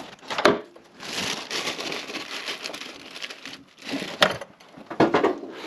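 Rustling, crinkling handling noise with a sharp click about half a second in and another just after four seconds.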